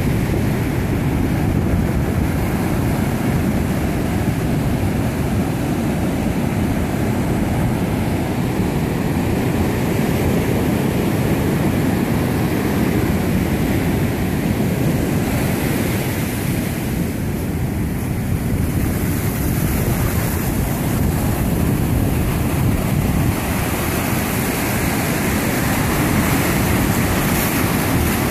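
Ocean surf washing up a sandy beach, a steady rush of waves with wind buffeting the microphone.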